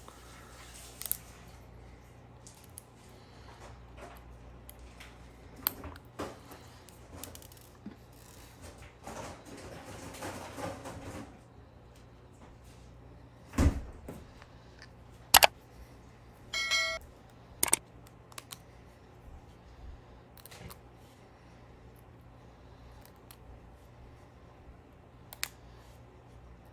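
Small metal tools and tiny screws being handled while taking a Galaxy Note 8 phone apart: scattered light clicks and taps, a scraping rub a third of the way in, several sharper knocks past the middle, and one short ringing tone.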